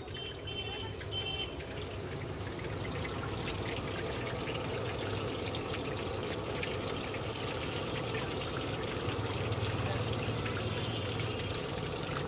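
Vadas deep-frying in hot oil in an iron kadai: a steady sizzle that builds over the first few seconds and then holds.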